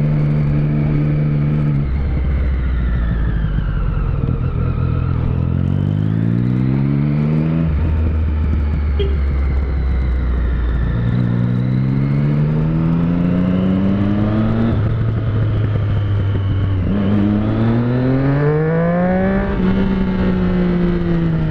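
Motorcycle engine heard from the rider's seat, the revs climbing three times as it accelerates through the gears, with steadier lower running between the climbs, then dropping near the end as it slows.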